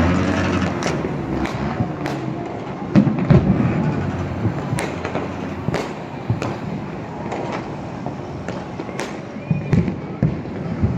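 Many fireworks and firecrackers going off at once: a continuous rumble of bangs with sharp cracks standing out every second or so, loudest about three seconds in.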